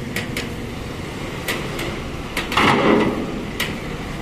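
Ferry-dock background noise: a steady low rumble with scattered sharp clicks and knocks, and a louder rush of noise a little over halfway through.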